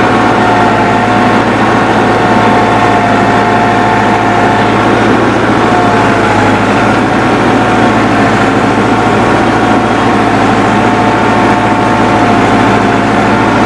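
Massey Ferguson 385 tractor's four-cylinder diesel engine running steadily under ploughing load at about 1600 rpm, with a steady whine over the engine note.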